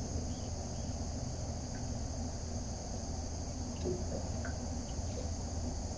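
Steady high-pitched drone of insects over a low rumble, with a few faint ticks.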